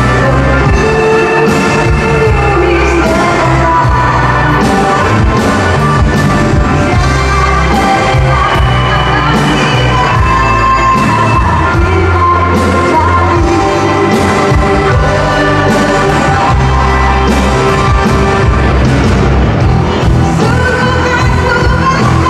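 A woman singing a Malay pop song live into a microphone, backed by a band with electric guitars, bass and drums, amplified over a PA system.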